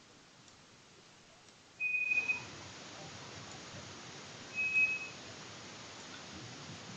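Two short, steady, high-pitched beeps about two and a half seconds apart, over a faint hiss that gets louder about two seconds in.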